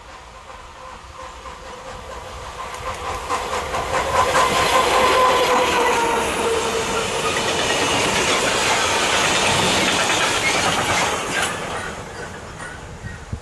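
Škoda class 130 electric locomotive passing with a freight train of flat wagons loaded with coiled steel wire. The locomotive's hum swells and drops in pitch as it goes by about five seconds in, then the wagons' wheels clatter rhythmically over the rail joints and the sound fades near the end.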